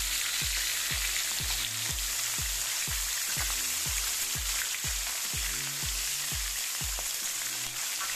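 Lobster halves frying in hot oil in a pan, a steady sizzle, over background music with a steady beat of about two strokes a second.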